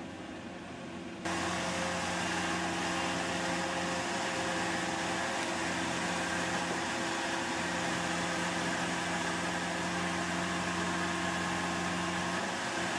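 Engine of a Moffett truck-mounted forklift running steadily while it handles pallets of stone: a low, even hum with a broad hiss, coming in suddenly and louder about a second in.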